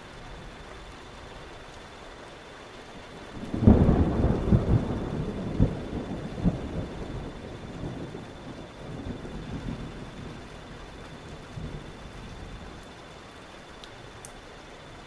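Thunderstorm: steady rain hiss, then a clap of thunder about three and a half seconds in that rumbles on in several rolls and dies away over the next eight seconds.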